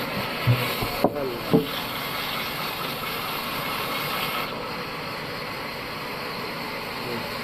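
Bandsaw sawmill machinery running steadily, with three sharp knocks about half a second apart in the first two seconds.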